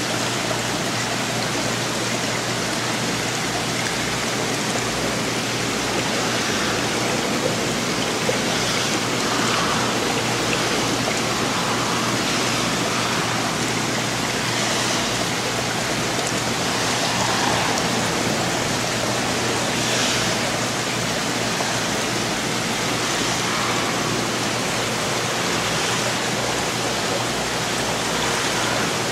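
Steady rushing and splashing of water circulating through an aquarium's filter or pump, with a low steady hum underneath.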